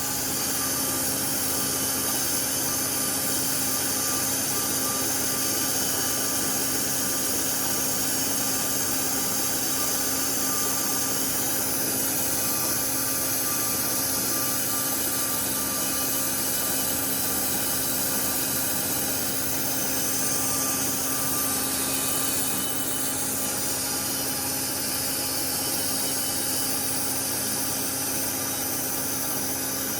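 Metal lathe running steadily while turning steel, the cutting tool peeling off long stringy chips like steel wool. It gives a continuous hum with a high hiss, a little quieter from about 22 seconds in.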